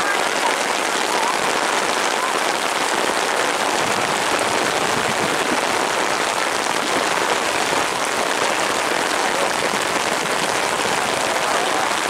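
Heavy rain falling steadily, an even, dense hiss that holds at the same level throughout.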